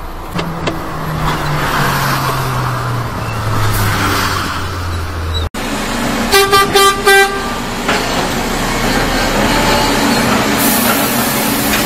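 Mercedes-Benz Axor truck's engine running as the truck slows, its pitch stepping down over about five seconds before it cuts off suddenly. Then a truck horn gives four short toots, with a heavy engine running steadily behind.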